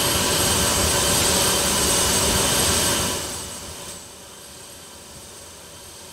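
Steady jet engine and airflow noise inside an airliner cabin in flight. About three seconds in it fades down to a much fainter steady hiss.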